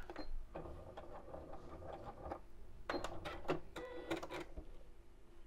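Electric domestic sewing machine running, stitching a narrow zigzag around the edge of a fused fabric appliqué, with a few sharp clicks past the middle.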